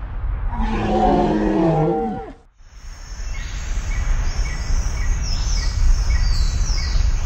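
Wind rumbling on the microphone. Starting about half a second in, a long drawn-out voice-like call slides down in pitch as it ends. After a brief dropout, insects chirp steadily with a repeating high note.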